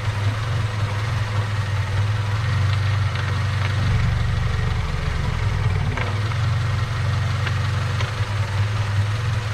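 Honda Civic four-cylinder engine idling unevenly, its note dropping lower for about two seconds in the middle before coming back up. It is a hot engine that skips and chokes with the check engine light on, which the owner thinks could be just a sensor.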